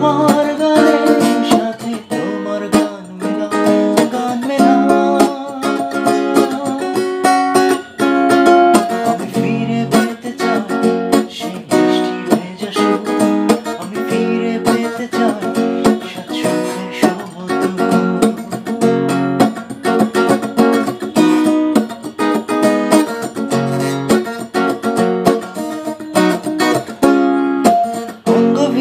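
A man singing a Bengali song while strumming a Godson acoustic guitar with steady, dense chord strokes.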